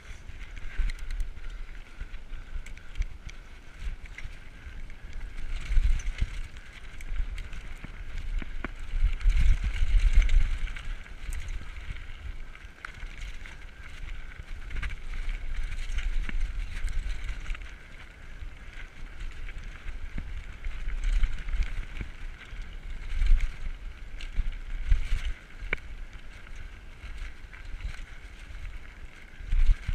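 Diamondback Recoil 29er mountain bike ridden over a rocky dirt trail: knobby tyres hissing and crunching on gravel, with scattered clicks and knocks as the bike rattles over rocks. Wind buffets the microphone in a low rumble that swells and fades several times.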